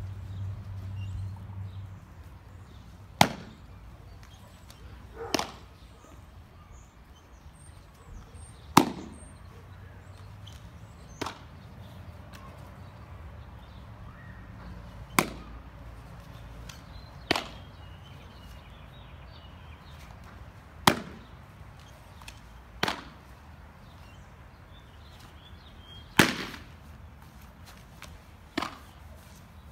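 Sharp pops of a baseball smacking into a leather catcher's mitt during pop-up and framing practice, ten in all, about every two to three seconds, alternating louder and softer.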